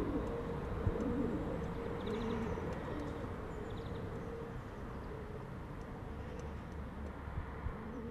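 Pigeons cooing in the first few seconds, with a few brief high bird chirps, over a steady background hiss.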